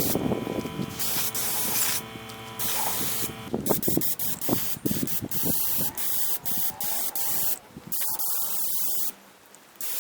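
Aerosol spray-paint can hissing in a series of bursts, longer at first, then many short squirts, with a longer spray near the end.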